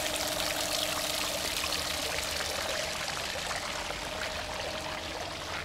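Steady rush of running water, even and unbroken, with a faint steady hum underneath.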